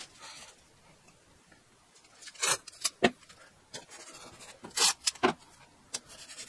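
Blue masking tape pulled off the roll twice, each time a short rasp followed by a sharp snap as the strip is torn off, then pressed onto the fibreglass body panel to protect the gel coat.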